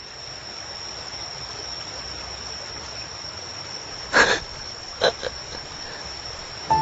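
A steady, high-pitched, insect-like chirring ambience, broken by two short noises about four and five seconds in; music begins right at the end.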